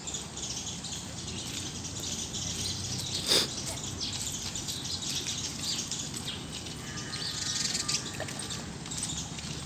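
Birds chirping over a steady hiss, with one sharp click about three seconds in.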